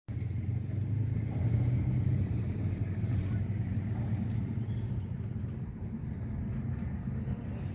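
Steady low rumble of a 2023 Nissan Qashqai on the move: engine and road noise while driving.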